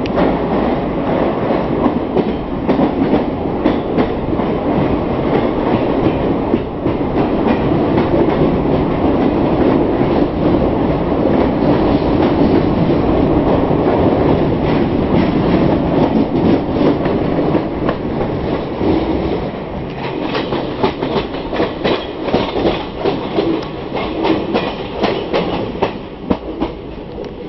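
Passenger express train running at speed, heard from aboard a coach. Inside the tunnel the wheels on the rails make a loud, dense rumble. After about 20 seconds, out in the open, it turns into a quieter clickety-clack of wheels over rail joints.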